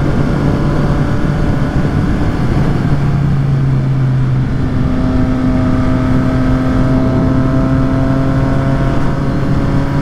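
Triumph Street Triple 765 RS inline-three engine with a Yoshimura exhaust, running at a steady road speed under wind rush. The engine note changes about halfway through and then holds steady again.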